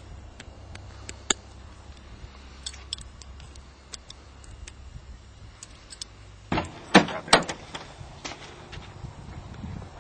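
A van's sliding side door being handled: scattered small clicks and rattles, then a burst of several loud knocks and clunks about six and a half to seven and a half seconds in.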